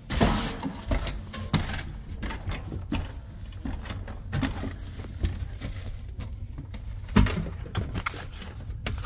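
Irregular knocks, bumps and scuffing from climbing a wooden pull-down attic ladder and moving over insulation and ductwork in the attic, with louder knocks just after the start and about seven seconds in.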